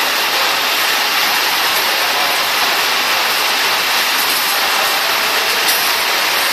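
Steady, loud hissing running noise of a bag-drop case packing machine line, with no distinct clicks or rhythm.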